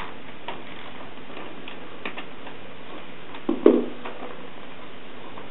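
Scattered light clicks of a small socket ratchet and loosened bolts being handled while the clutch cover fasteners come out, with one louder clack about three and a half seconds in.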